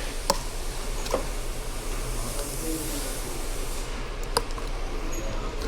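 Metal hand tools clicking sharply a few times against a steady low hum, with a hiss through the middle couple of seconds.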